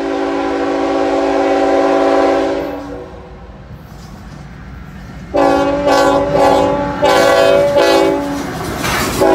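CSX diesel freight locomotive's multi-note air horn blowing: one long blast of about three seconds, then after a pause a run of short, chopped blasts about five seconds in, with another blast starting at the very end as the locomotive draws near.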